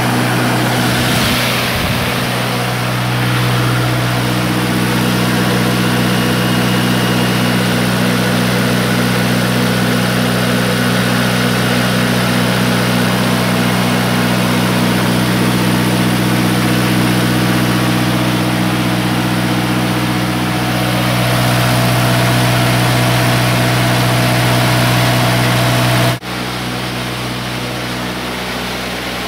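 Diesel engine of a 30-kilowatt standby generator running steadily, unloaded, after its starter solenoid was replaced. About 26 seconds in, it suddenly drops quieter.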